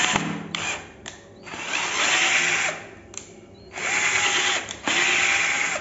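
Flipkart SmartBuy 12 V cordless drill driving a large screw into a wooden board, the motor running in several short trigger bursts that start and stop.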